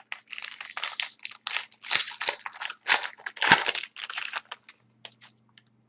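A trading-card pack's wrapper being torn open and crinkled for about four and a half seconds, then a few light clicks and rustles as the cards are handled.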